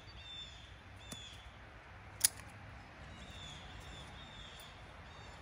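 Hand pruners snipping through a peach branch once, a sharp snap about two seconds in, after a fainter click about a second in. Birds chirp in the background.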